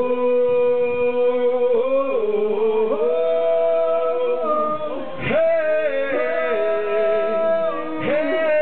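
Male voice singing long wordless notes through a PA system, the melody stepping up and down every second or two.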